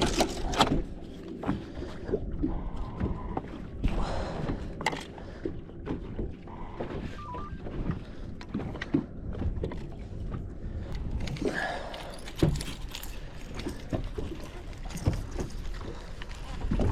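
Scattered knocks and thunks aboard a fishing boat over a steady low rumble.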